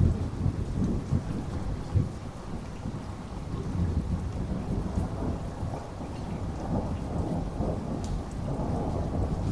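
Thunderstorm recording: steady rain with a low rolling rumble of thunder that swells right at the start and keeps rumbling underneath, with louder peaks about two seconds in.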